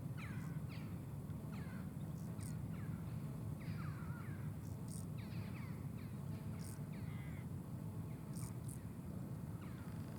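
Brief high buzzy chirps from a stridulating grasshopper, coming a few times. Over them, birds keep up short falling crow-like calls, about one a second, against a steady low rumble.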